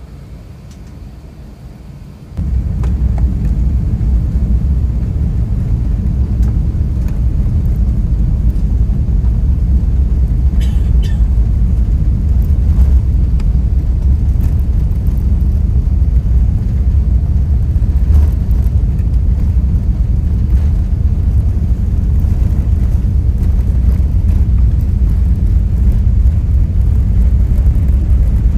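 Steady low rumble inside the cabin of an Airbus A380 rolling along the ground. The rumble jumps up sharply about two seconds in and then holds.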